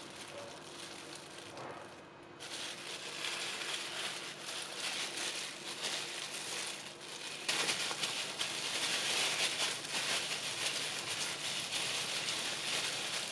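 Thin disposable plastic gloves crinkling and rustling as hands knead and roll a soft ball of glutinous-rice mooncake dough. The crinkling grows louder about two seconds in and again about halfway through.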